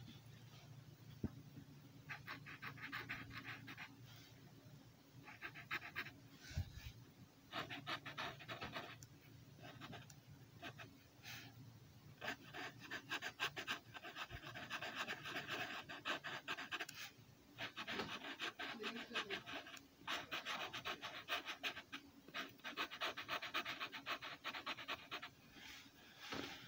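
Felt tip of a red Sharpie permanent marker scratching across paper in rapid back-and-forth strokes, filling in colour. It comes in runs of one to several seconds with short pauses between them.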